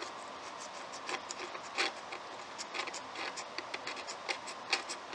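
Single-edge razor blade scraping the old finish on oak wood in a series of short, irregular strokes, flattening out drips and runs in the finish.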